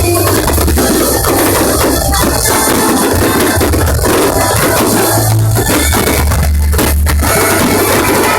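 Loud, distorted music with a heavy bass beat, broken by repeated sharp firework bangs and crackle that overload the phone's microphone.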